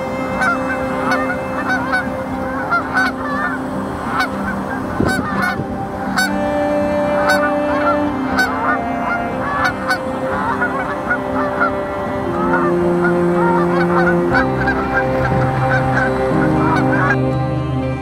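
A flock of Canada geese honking over and over, with soft background music of long held notes underneath; the honking stops near the end.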